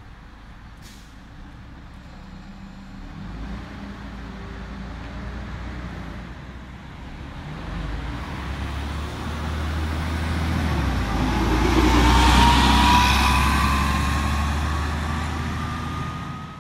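Ikarus 435 articulated diesel bus pulling away from a stop and accelerating past: the engine's rumble builds over several seconds and is loudest about three-quarters of the way through. A whine rises steadily in pitch as the bus gathers speed.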